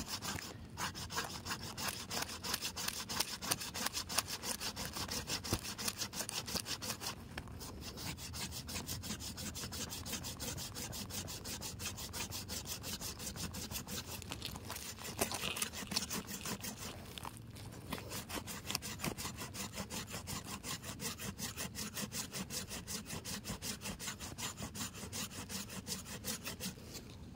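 Curved pruning saw cutting through a thick live ileng-ileng root, in steady back-and-forth strokes. The teeth bite on both the push and the pull. The sawing pauses briefly twice.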